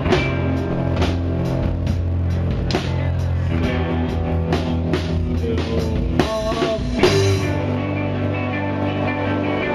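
Live rock band playing: guitars and bass over a drum kit, with drum hits keeping a steady beat.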